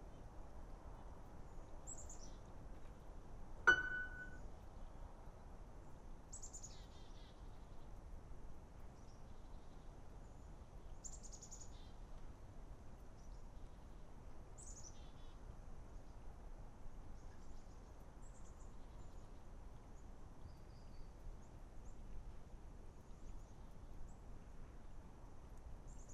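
A small bird chirping now and then: short, high, falling calls a few seconds apart, over a faint steady hiss. About four seconds in, a single sharp click with a brief ringing ping, the loudest sound.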